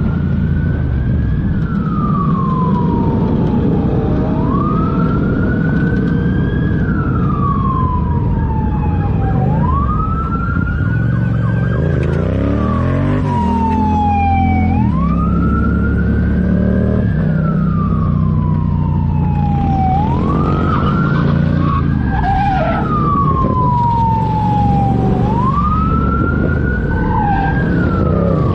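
Police car siren wailing, each cycle rising quickly and then sliding slowly back down, about every five seconds. Underneath is the steady sound of a motorcycle's engine and wind, heard from the rider's helmet camera, with a short change in engine pitch about halfway through.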